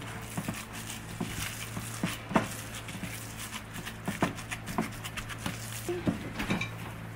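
Ground meat being kneaded and squeezed by a gloved hand in a glass bowl: irregular wet squishing and slapping sounds, over a steady low hum.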